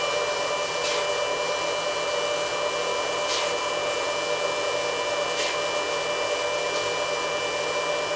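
Continuous hiss of paint being sprayed onto small diecast model parts, over a steady mechanical hum.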